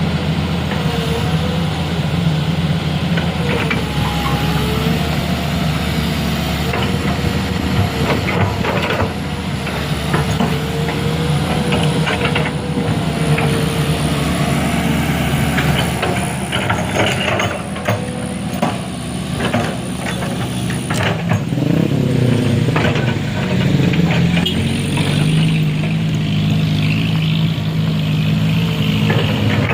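Heavy truck engine running steadily, with scattered knocks and clatter in the middle.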